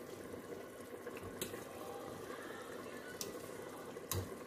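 Rigatoni boiling in a pan of salted water while a spoon stirs it, with three sharp clicks of the spoon against the pan.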